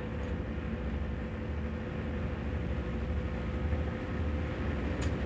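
Car on the move: a steady low engine and road rumble with a faint steady hum over it, and one short tick near the end.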